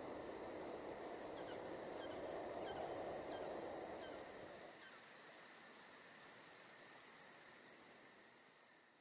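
Faint, steady chorus of crickets chirping, fading out near the end.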